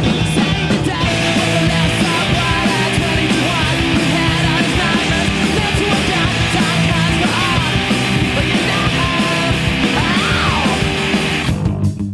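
Loud, dense noise-rock band playing: a wall of distorted noise over bass and drums, with a few sliding squeals in the middle. Near the end the noisy wash cuts out, leaving the bass and drum hits.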